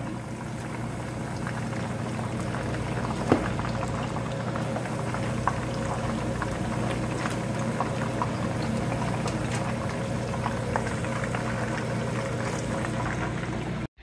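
Two whole fish deep-frying in a pan of hot oil: a steady sizzle full of small crackles and pops, with a low steady hum underneath.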